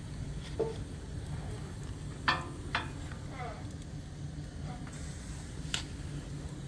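Steel firebox door latch on a steam boiler clicking twice as it is released and the door opened, then a wood fire crackling in the open firebox. A steady low hum runs underneath.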